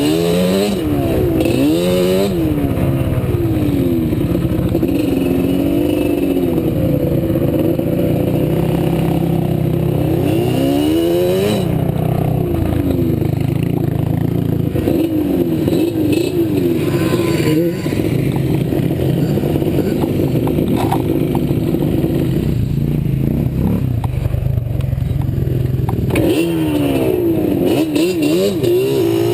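ATV engine being ridden hard, its pitch repeatedly climbing and dropping as the throttle is worked and it shifts gears, with sharp swoops near the start, about a third of the way in and near the end.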